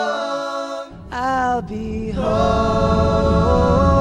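Background music: a song with layered voices holding notes in harmony. A low rumble comes in about a second in and continues under the singing.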